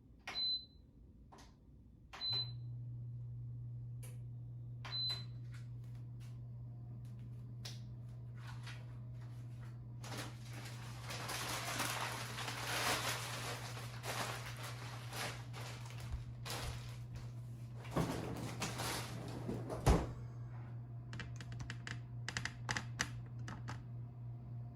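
An air fryer toaster oven's control panel gives three short, high beeps. About two seconds in, a steady low hum starts, typical of the oven's convection fan running. Midway there is a stretch of rustling with a couple of knocks.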